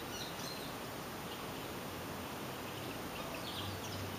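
Steady background hiss with a few faint, brief bird chirps near the start and again about three and a half seconds in.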